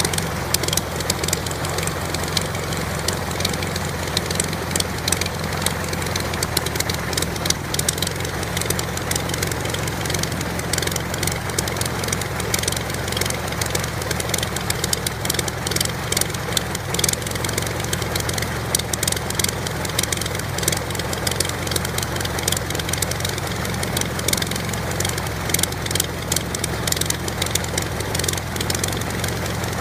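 1928 Command-Aire biplane's engine idling steadily, its propeller turning.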